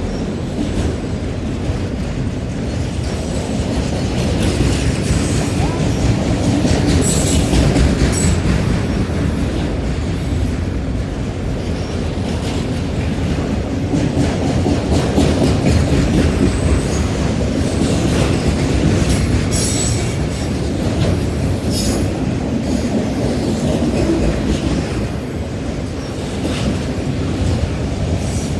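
Freight cars of a CSX mixed freight rolling past at track side: a steady rumble of wheels on rail with clickety-clack. Brief high wheel squeals come through a few times.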